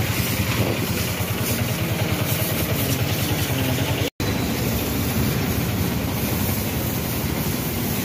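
A motor running steadily with a fast, even pulsing, cutting out for an instant about four seconds in.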